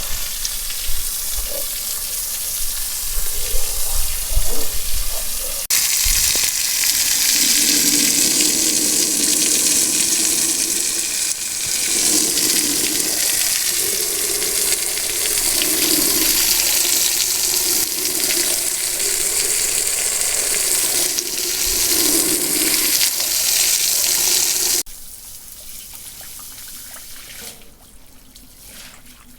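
Water running strongly and steadily, starting abruptly about six seconds in and cutting off abruptly near the end, with a low sound swelling and fading under it every second or so.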